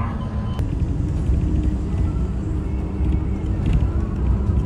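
Moving city bus heard from inside the cabin: a steady low rumble of engine and road noise.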